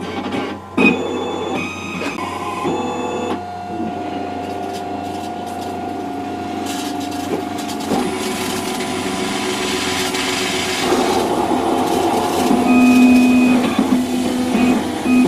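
Cerec MC XL milling unit grinding an e.max ceramic crown block: a steady machine whine and grinding noise whose tones shift in pitch as the cut changes.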